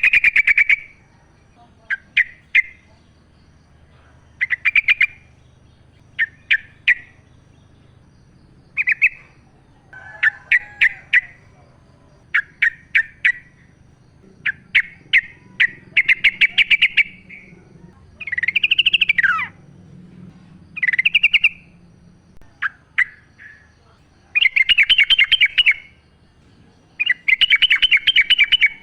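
Yellow-vented bulbul (trucukan) singing: short bubbly chattering phrases repeated every second or two, with longer rolling phrases near the end.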